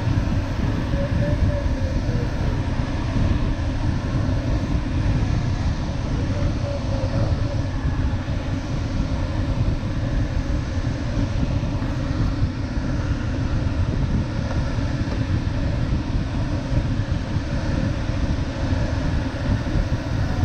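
Steady rush of air over the canopy of an LS7-WL sailplane in flight, heard inside the cockpit as a dense low rumble.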